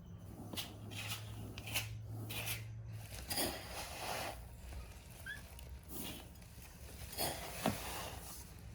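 A baby monkey chewing and handling bread: scattered short crackles, smacks and rustles. A low hum runs underneath and stops about three seconds in.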